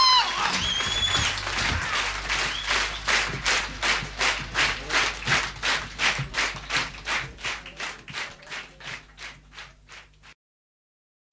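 Live concert audience clapping in unison, about three claps a second, with a short whistle near the start. The clapping fades out and cuts to silence near the end.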